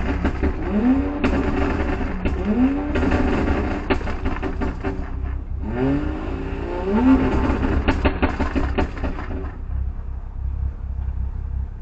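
A car engine revs hard again and again, its pitch sweeping up each time, about five times, over a rough roaring noise. About nine and a half seconds in the revving stops, leaving a low steady engine rumble.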